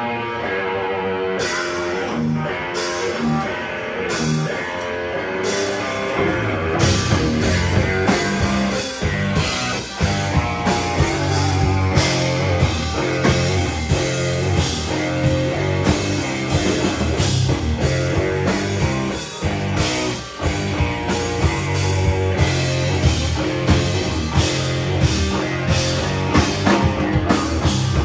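Live rock trio of electric guitar, electric bass and drum kit playing a heavy, slow riff. Sparse guitar notes open with a cymbal crash about every second and a half. About six seconds in, the bass and drums come in hard and the full band carries on with a steady beat.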